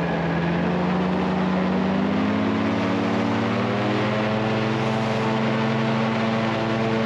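Alligator airboat's engine and air propeller running under power. Its pitch rises about a second and a half in and then holds steady.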